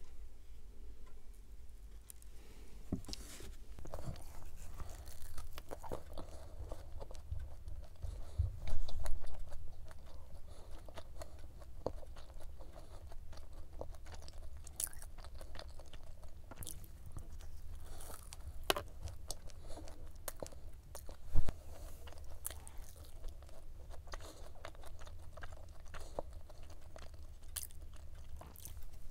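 Close-miked chewing and biting of a flaky cube pie, a laminated pastry filled with black sesame cream, with many small crisp crackles. There are two louder thumps, one about nine seconds in and a sharp one about twenty-one seconds in.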